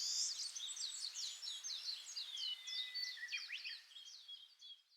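Birdsong-like chirps and twitters made with the mouth, a quick run of short high calls that thins out and stops near the end.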